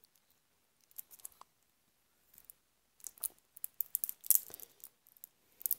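The wrapping on a deck of playing cards being picked at and torn open by hand: scattered rustles and small clicks, sparse at first and busier from about three seconds in.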